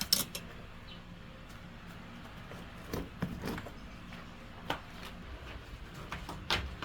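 Scattered sharp clicks and knocks of hand work on a rice milling machine, over a low steady hum; the clearest strikes come just after the start and about two-thirds through.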